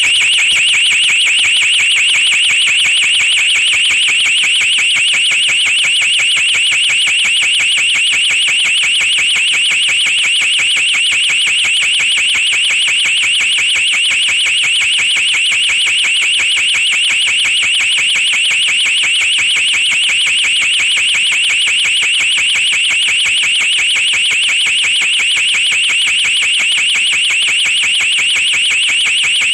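DNI4207 electronic two-tone fire-alarm siren sounding its alarm signal: a loud, high-pitched, rapid warble held evenly without a break.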